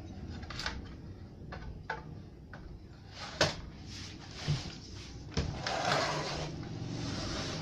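Clicks and knocks of a CRT television's circuit board and plastic chassis being handled and fitted back into the set. The loudest knock comes about three and a half seconds in, followed by a scraping rustle of plastic near the end.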